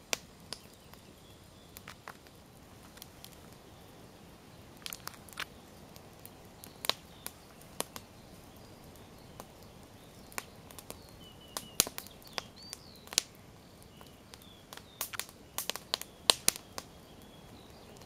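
Wood bonfire of burning logs and branches crackling, with sharp pops at irregular intervals that come thicker near the end.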